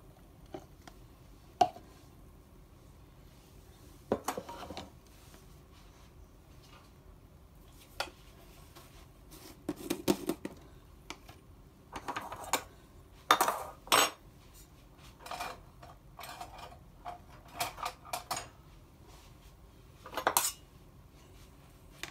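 Kitchen dishes and utensils being handled: intermittent clinks, knocks and rattles of bowls, spoon and containers in about ten short bursts, a few of them sharp clinks.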